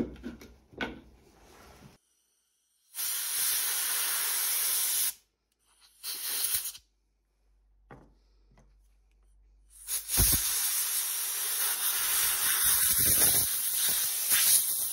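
Pressurised spray hissing from a nozzle onto the dismantled parts of a pair of secateurs. There is a two-second burst, then a short one, then a longer spray from about ten seconds in, with a few light knocks of metal parts on the bench.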